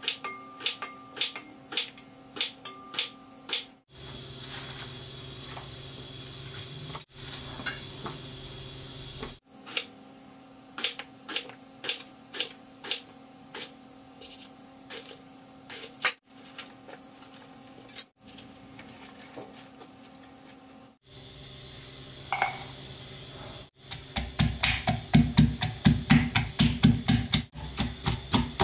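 A knife slicing long green eggplant into rounds on a wooden cutting board, a sharp knock about two or three times a second, in several short stretches. Near the end, a stone pestle pounds chillies and garlic in a granite mortar, with loud strokes about four times a second.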